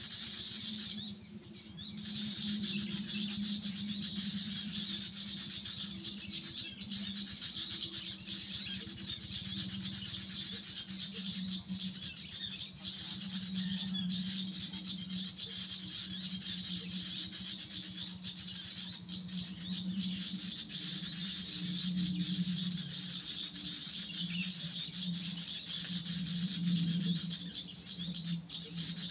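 Birds chirping and calling continuously over a steady high-pitched chorus, with a low hum underneath that swells now and then.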